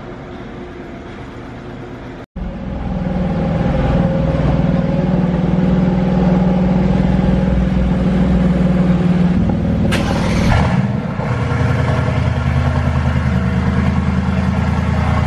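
Mercedes-AMG GT's twin-turbo V8 idling steadily while it warms up after a cold start, in a concrete parking garage. There is a short sharp noise about ten seconds in.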